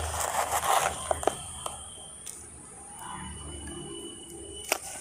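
Sand being spread and pressed down by hand in a seed pot, making a gritty scraping over the first second. A few small clicks follow, then one sharper click near the end.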